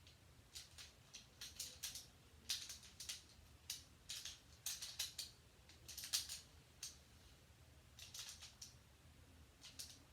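Plastic Rubik's-type puzzle cube being turned by hand: faint quick clusters of clicks as the layers are twisted, with short pauses between the turns.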